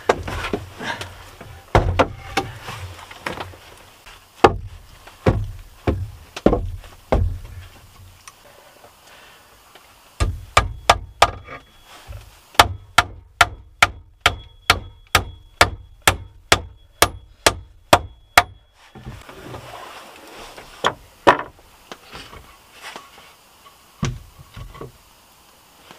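Hammer driving nails into a wooden plank: a steady run of sharp strikes, about three a second, for several seconds in the middle. Before and after come scattered heavier wooden knocks and thuds as stumps and boards are set in place.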